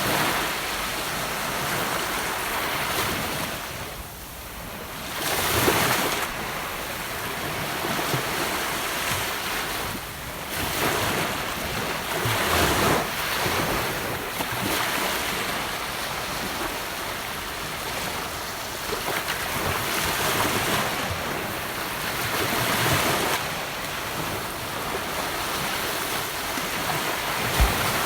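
Gentle ocean waves breaking on a beach and washing up the shore. The surf swells louder every few seconds, with no wind noise.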